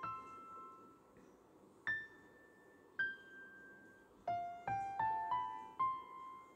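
Background music of soft piano notes: a few sparse single notes, then a quicker run of notes climbing in pitch near the end.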